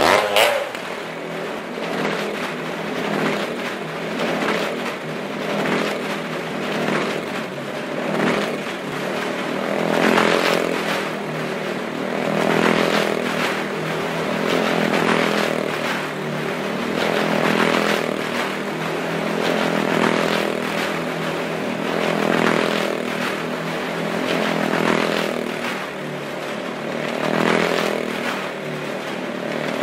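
Motorcycle engine running as it laps the wall-of-death drum. The engine note swells and fades about every two and a half seconds as the bike circles past.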